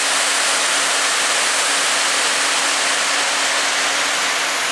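Steady rush of water pouring over a dam into the creek below.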